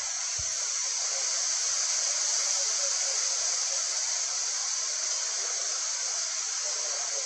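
Steady outdoor background hiss with no distinct calls or voices, strongest in a high, even band; a faint low thump about half a second in.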